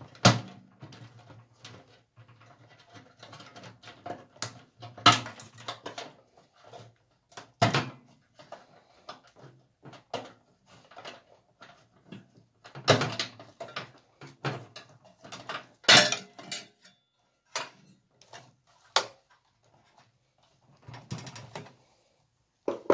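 Wiring and push-on connectors being tugged loose inside a scrapped microwave oven: irregular rattling and clicking against the sheet-metal chassis, with several sharp knocks spread through.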